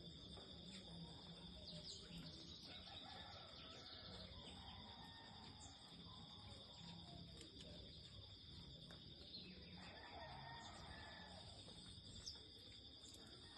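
Faint outdoor birds calling on and off over a steady high insect buzz.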